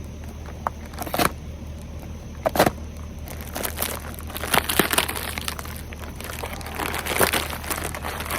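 Well-taped plastic shipping package being torn and pulled open by hand: irregular rustling and crinkling with several sharp rips, the loudest about two and a half seconds in.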